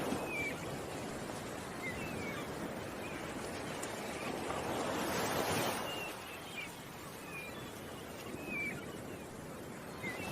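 Ocean waves washing in, with a swell of surf about five seconds in, and small birds giving repeated short, high chirps.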